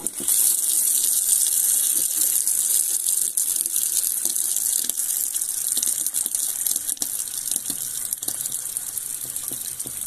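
Water running steadily from a kitchen mixer tap into a stainless steel sink.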